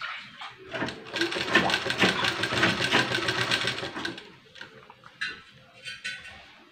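Sewing machine stitching a bias strip onto a blouse neckline: a fast, even rattle of stitches from about a second in until about four seconds in, then it stops, with a couple of short bursts near the end.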